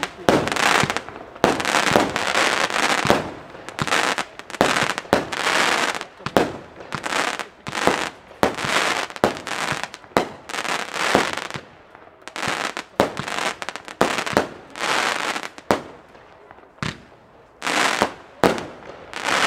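Lesli Chain Smoker firework cake firing shot after shot: sharp launch pops and bursts, each trailed by crackling, in quick succession with a short lull near the end. The reports are light rather than heavy bangs.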